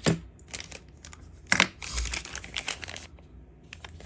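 Hands handling Zippo lighters and their packaging: several sharp clicks and knocks, the loudest about one and a half seconds in, with crinkling in between.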